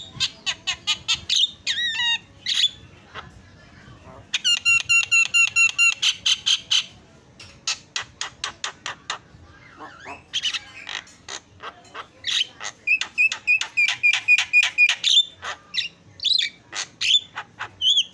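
Javan myna singing: fast runs of short, sharp chattering notes, several a second, mixed with harsh squawks and whistled phrases and broken by brief pauses.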